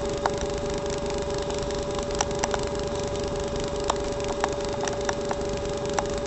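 Steady hiss with a constant electronic hum and a buzz pulsing several times a second: the self-noise of a cheap $10 off-brand camcorder's recording. Scattered light clicks are heard over it.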